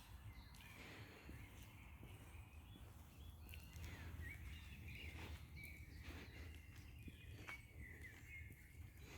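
Faint birdsong: scattered short chirps and whistled calls from small birds, more of them in the second half, over a low steady outdoor rumble.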